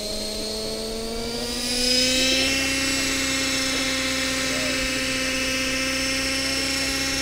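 Engine-powered radio-controlled model helicopter spooling up and lifting off: a steady engine-and-rotor whine rises in pitch and grows louder about two seconds in, then holds steady as it climbs and hovers.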